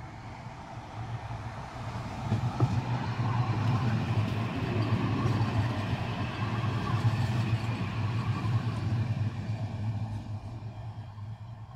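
Siemens Avanto tram-train passing close by: a steady low hum with rolling wheel-on-rail noise, building over the first few seconds and fading away near the end.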